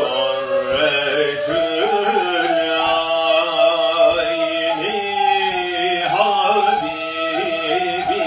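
A man singing with two neys, Turkish end-blown reed flutes, playing along. He holds long notes that waver and bend.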